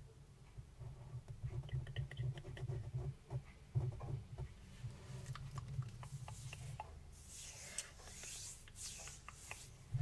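Fine-tip pen scratching over paper as lines are drawn, with small ticks of the nib. In the second half come several soft swishes of hands moving and rubbing close to the microphone.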